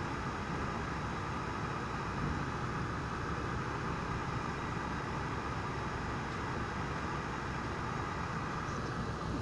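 Steady rain falling, an even, unbroken hiss with no thunderclap.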